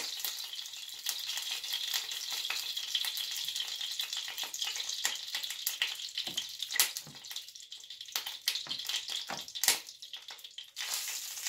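A floured piece of flounder frying in hot vegetable oil in a pan: a steady sizzle with scattered crackles and pops.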